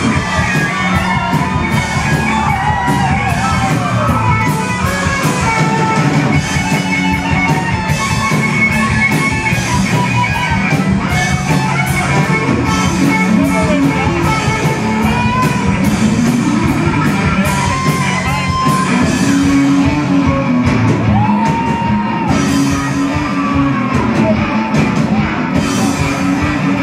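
Rock band playing live and loud: distorted electric guitars, bass and drums, with steady drum hits under gliding guitar lines.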